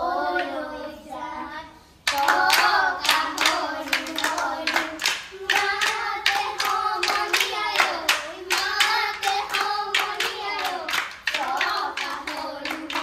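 A child singing with rhythmic hand claps keeping time. The sound dips briefly, then the singing and clapping come back in about two seconds in.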